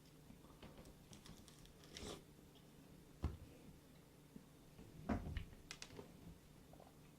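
Faint scattered taps and rustles from handling a lemon, a few separate small clicks over quiet room tone.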